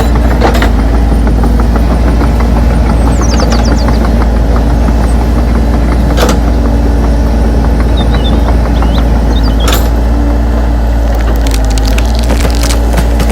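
A loud, steady motor drone with scattered sharp cracks and snaps, like wood splintering.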